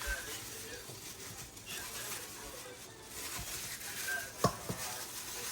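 Quiet kitchen handling sounds of dishes and utensils, with a sharp knock about four and a half seconds in.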